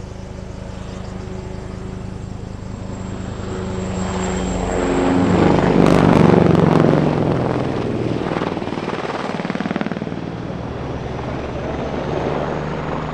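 Eurocopter Tigre attack helicopter making a low pass: steady rotor chop and a high turbine whine build to their loudest about six seconds in and drop in pitch as it goes by, then ease off.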